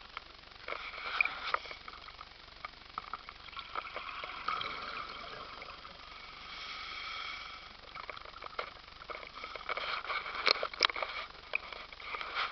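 Underwater sound picked up through a scuba diver's camera housing: irregular clicks and crackles over a hiss, from exhaled regulator bubbles and the housing being handled. The loudest crackling comes about ten to eleven seconds in.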